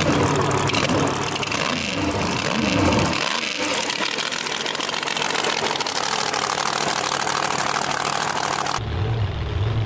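Race car engines running: uneven revving for the first three seconds or so, then a steady loud engine noise, and after an abrupt change near the end a low, pulsing idle.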